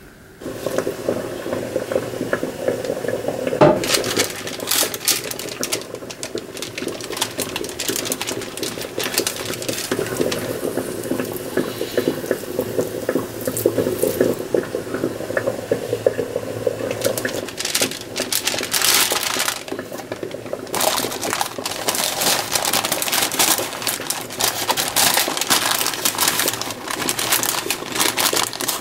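Wet, sticky squelching and clicking as hands press and shape a moist ground-pork filling on a soft sweet-potato-starch skin. A little past the middle it gives way to the rustle and crinkle of parchment cooking paper being gathered up around the filled skin.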